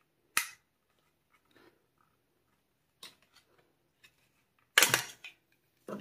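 Sharp plastic snaps and clicks as the white plastic housing of a robot vacuum's fan unit is pried apart. There is one sharp snap near the start, a lighter click around the middle, and the loudest, a quick cluster of cracks, near the end.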